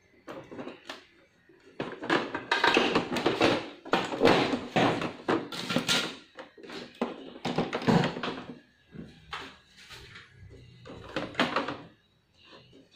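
Plastic housing of an HP Deskjet 2515 printer being handled and pressed back into place: a string of irregular knocks, rubs and clunks of plastic parts.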